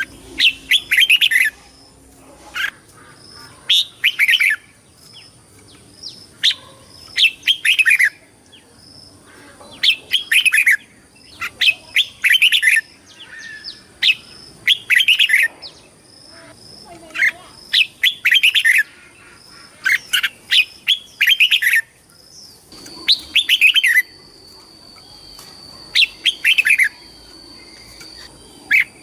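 Red-whiskered bulbul singing: short warbled phrases of about a second each, repeated every second or two.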